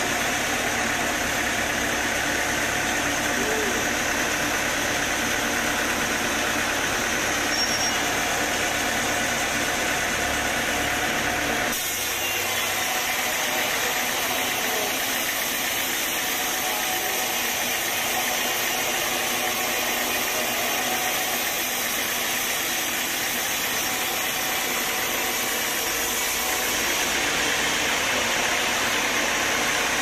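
Band sawmill sawing lengthwise through a young teak log: the blade running steadily through the wood over the machine's motor, the low hum dropping away abruptly about twelve seconds in.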